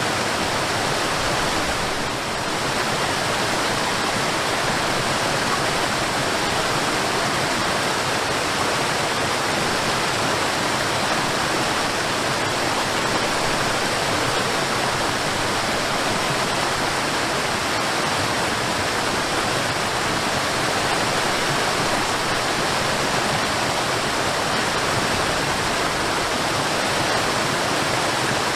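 Steady rush of running water, an even noise without breaks.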